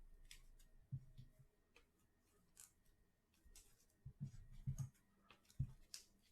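Faint handling sounds of trading cards being sorted: scattered light clicks and a few soft thumps as cards are shuffled and set down on a table.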